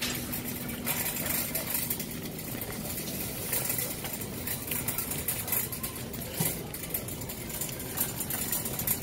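Wire shopping cart pushed across a store floor: its wheels rolling with a steady noise and its metal basket rattling.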